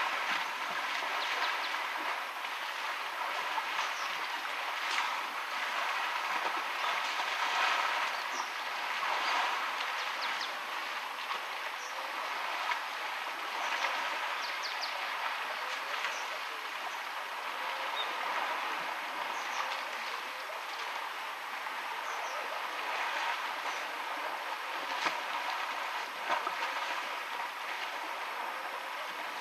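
Steady rush of a shallow river flowing past, with scattered splashes and sloshes from African elephants wading and drinking in the water.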